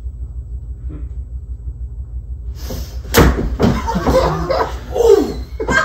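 A loud thud about three seconds in as a performer is thrown down onto the stage floor, followed by loud cries and a second thud near the end.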